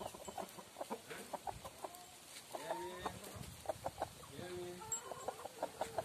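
Chicken clucking: a run of short clucks, with a few longer calls around the middle.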